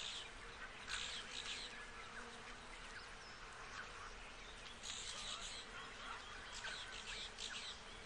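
Faint wildlife ambience of insects buzzing, with short scratchy bursts about a second in and again around five and seven seconds.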